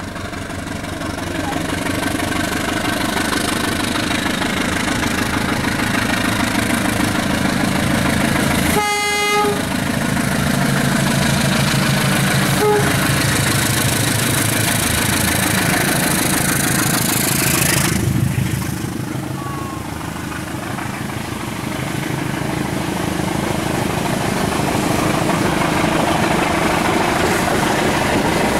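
Diesel passenger locomotive approaching and passing close by with its engine running, sounding its horn in one short blast about nine seconds in and a brief toot a few seconds later. Its sound changes suddenly about two-thirds through, and the carriages then roll past.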